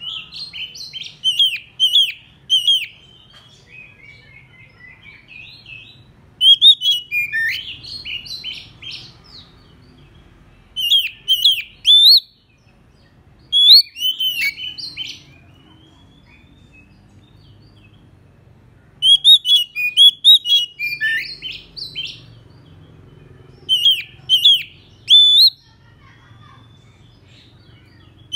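Oriental magpie-robin singing about six loud bursts of rich, sweeping whistled phrases, with pauses of a few seconds between them. This is the aggressive challenge song of a decoy bird calling out a rival.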